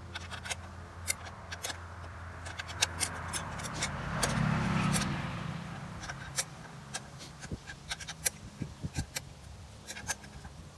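Scattered light metallic clicks and clinks as the Alaskan chainsaw mill's frame and depth adjusters are handled, over a low hum. About four seconds in, a vehicle's sound swells and then fades away.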